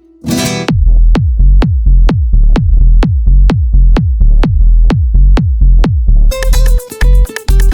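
Electronic dance music. A cymbal swell opens it, then a steady four-on-the-floor kick drum comes in at about two beats a second, and a synth melody joins near the end.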